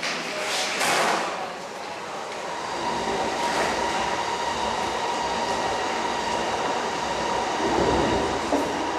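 Metro train running: a steady rumble and rush with a high whine that sets in a few seconds in, swelling again near the end.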